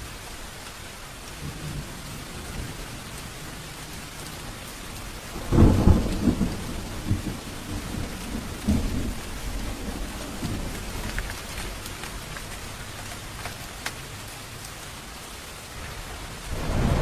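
Steady rain falling through a thunderstorm. Thunder rumbles loudly about five and a half seconds in and rolls away over several seconds, and a second peal builds near the end.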